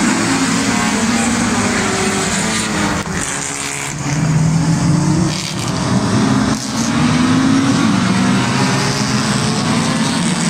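Engines of a pack of historic saloon race cars running hard on the circuit, the engine notes rising and falling as they rev and pass.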